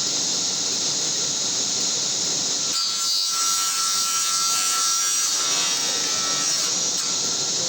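Table saw running, with a cut through wood from about three seconds in to about seven seconds in, when the sound brightens and hisses more as the blade works through the stock.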